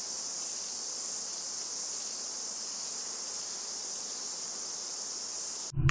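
Steady, high-pitched chorus of insects, the even chirring of a woodland ambience; it cuts off suddenly just before the end.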